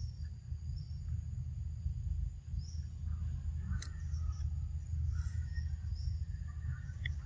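Forest insects chirring in a steady high drone, over a constant low rumble. A couple of short sharp clicks come a little before and after the middle.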